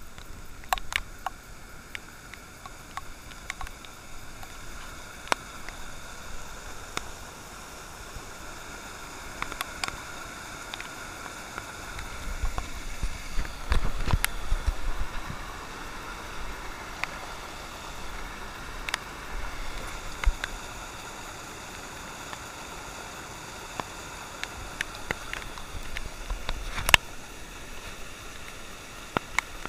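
Storm floodwater rushing out of a rusty culvert pipe and cascading down a rocky gully, a steady noisy rush. Scattered sharp clicks sit on top, and a low rumble swells about halfway through.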